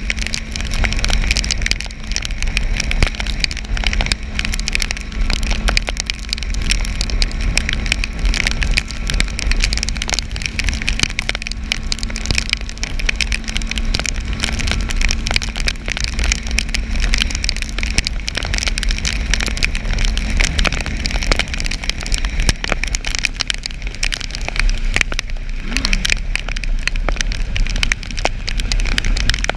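Motorcycle riding on a wet highway in the rain: a steady engine hum under the hiss and crackle of rain and tyre spray, with heavy wind rumble on the microphone. The engine tone fades back near the end.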